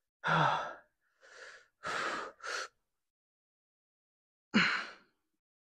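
A man breathing hard: about five short, forceful breaths through mouth and nose, one at the start, three in quick succession around the middle, and one more near the end, with silence between.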